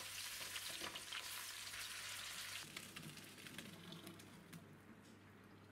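Food cooking in a pot: a steady crackling, fizzing sizzle with scattered small pops. It grows quieter from about halfway through.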